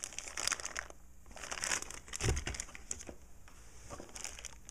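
Clear plastic bag crinkling as a bagged charger cable is handled, in a quick run of crackles, with a soft thump about halfway.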